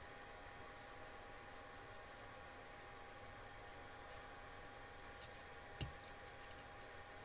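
Faint, scattered clicks and taps of small metal hot-end parts being handled, with one sharper click about six seconds in, over a faint steady hum.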